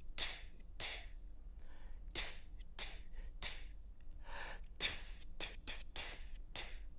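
Short breathy 'tu' puffs of air through the lips, set as for a brass buzz: tonguing practised without a mouthpiece, about a dozen unpitched attacks, a few in quicker succession near the end.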